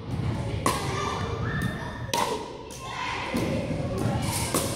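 Pickleball paddle striking a plastic ball and the ball bouncing on a hardwood gym floor: sharp echoing pops about every second and a half, with a quicker pair of lighter taps near the end.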